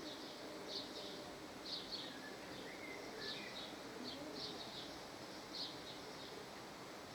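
Faint birdsong: short, high chirps repeating irregularly, a little more than once a second, over a low steady background hiss.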